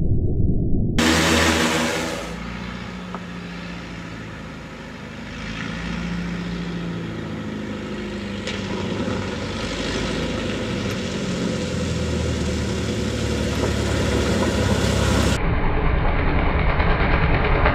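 Light bush plane's piston engine and propeller running, in edited clips that change abruptly about a second in and again near the end. The engine dips in level early on, then grows steadily louder as the plane runs toward the camera.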